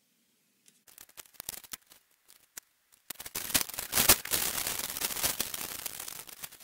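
Aluminium foil crinkling and crackling as a sheet is pulled off the roll and handled. A few scattered crackles come first, then from about three seconds in a dense, loud crackle that eases off slightly towards the end.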